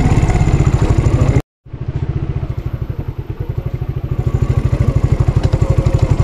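Motorcycle engine running with an even pulsing beat. The sound cuts out completely for a moment about a second and a half in, then returns quieter and grows louder again.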